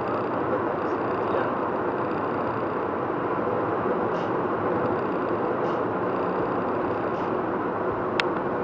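Steady road and engine noise inside a car cruising at highway speed, picked up by a windshield dashcam. There is a single brief click about eight seconds in.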